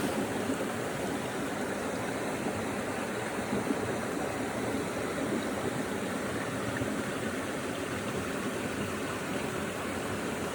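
Steady rushing of a flowing stream or river.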